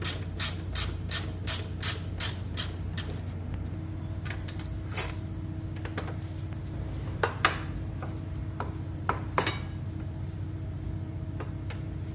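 Socket ratchet clicking steadily, about three clicks a second, as a 14 mm brake caliper mounting bolt is backed out; the clicking stops about three seconds in. Scattered metallic clinks and taps of tools and bolts follow, the loudest a sharp clink about seven seconds in.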